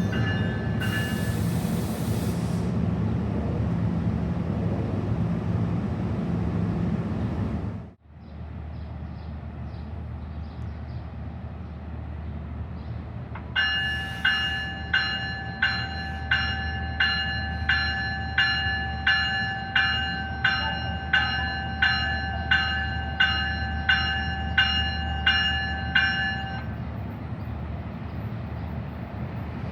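Train at a station: a loud, steady rumble with a brief hiss near the start. After an abrupt cut, a bell rings evenly about three strikes every two seconds for some thirteen seconds over a low rumble, then stops.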